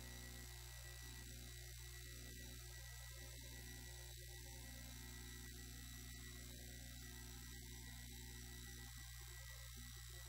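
Near silence with a faint, steady, low electrical hum.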